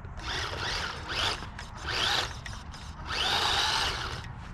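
The small electric motor and gears of a DEERC 9310 1:18-scale RC monster truck whining under throttle, in four short bursts that rise and fall in pitch as it speeds up and slows.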